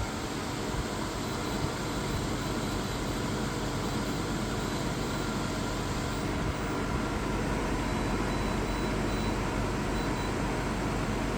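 Reiwa CP-1201RB portable air conditioner running: a steady rush of fan air with a low hum underneath and a faint high whine.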